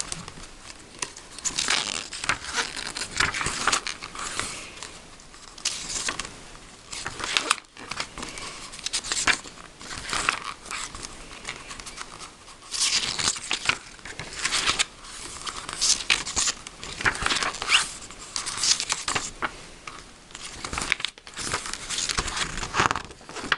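Pages of a glossy paper booklet being turned and handled: irregular rustles and flaps of paper.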